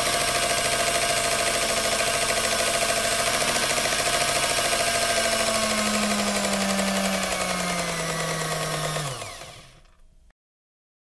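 Electric food mixer motor running at a steady speed, its pitch sagging slightly about seven seconds in, then switched off about nine seconds in and spinning down to silence.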